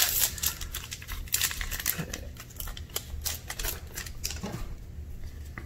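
Foil booster-pack wrapper crinkling and crackling in the hands as it is opened and the trading cards are slid out: a quick run of crackles and clicks that thins out over the last second or so.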